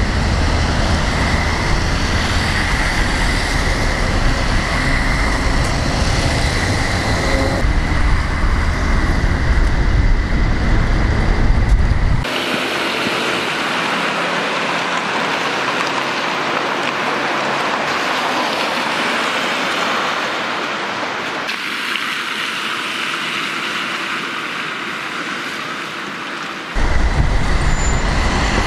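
Wet-street city traffic and tram noise. It changes abruptly several times as the scene cuts. A deep rumble runs through the first twelve seconds or so and returns near the end, and a steady high tone sits over the first several seconds.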